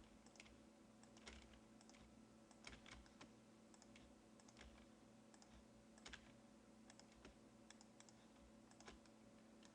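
Faint, scattered clicks from a computer keyboard and mouse at irregular intervals, over a low steady hum.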